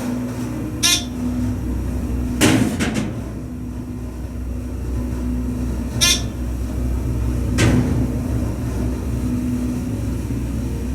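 Hydraulic elevator car travelling, with a steady low hum and a tone that swells and fades. Four sharp clicks or knocks come a few seconds apart, the second followed by a brief rattle.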